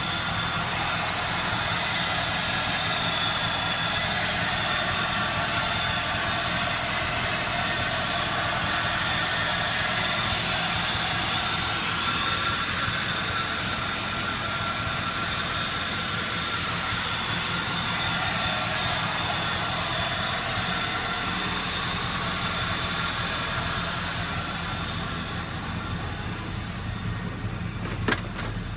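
GM LS V8 engine swapped into a 1965 Chevrolet Impala, idling steadily after being repaired so that it runs. A couple of sharp clicks sound near the end.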